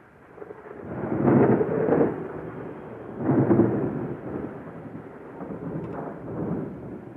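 Rolling thunder, rising in heavy swells about a second in and again about three seconds in, with a weaker swell near the six-second mark.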